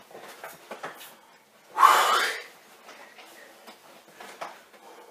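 A man's loud, breathy exhale of effort about two seconds in, amid faint rustling and light knocks from a backpack being swung around his head.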